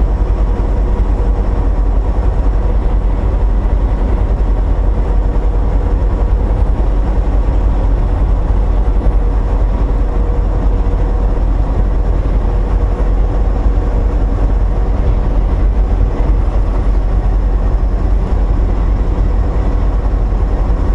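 Inside the cab of a semi-truck cruising at highway speed: the diesel engine and road noise make a steady low drone, with a faint whine that fades out about halfway through.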